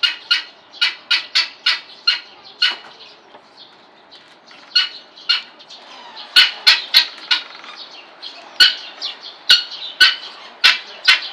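Helmeted guineafowl giving harsh, clipped squawking calls in quick runs of about three a second, with a lull of a couple of seconds near the middle and louder calls in the second half.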